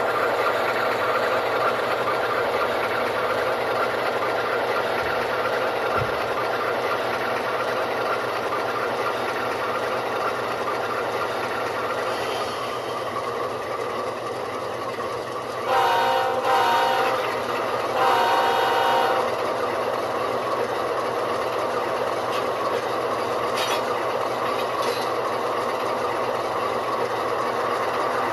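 ESU LokSound decoder playing a GE ES44AC diesel's prime mover sound through the HO model's small speakers, running steadily. Two horn blasts sound a little past the middle.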